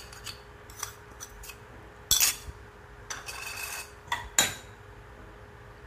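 Steel spoon scraping grated coconut out of a bowl and clinking against a stainless-steel mixer-grinder jar: a handful of separate scrapes and clinks, the loudest about two seconds in and again a little after four seconds.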